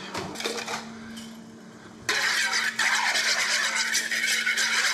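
Wire whisk beating a thin soy-sauce dressing in a mixing bowl: a fast, continuous rattling scrape that starts about two seconds in. Before it come a few quieter clinks from a utensil drawer being searched.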